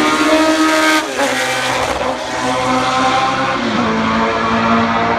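Tyrrell P34's Cosworth DFV V8 racing engine at high revs, its pitch climbing and then dropping sharply about a second in at a gear change, then running at steadier revs.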